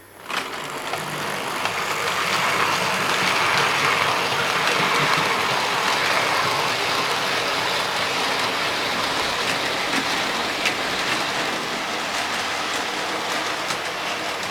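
OO gauge model train running along the track, a steady rushing rattle of motor and wheels on rail with scattered clicks over the rail joints. It starts suddenly, is loudest a few seconds in, then slowly fades as the train passes.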